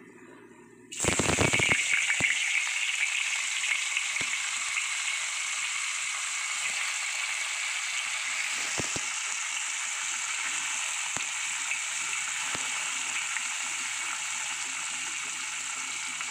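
Pieces of white tofu going into hot oil in a wok: a sudden loud sizzle about a second in that settles into steady frying, with a few faint clicks as more pieces go in.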